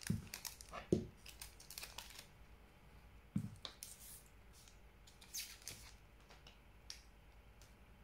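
Scissors snipping open a foil trading-card booster pack, with a few short clicks and crinkles of the wrapper, then rustling as the pack is handled and the cards are slid out. A soft knock comes about three and a half seconds in.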